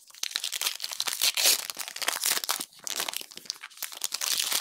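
Foil trading-card pack wrapper being torn open and crinkled in the hands: a dense, continuous crackle of the foil, loudest about a second and a half in and again near the end.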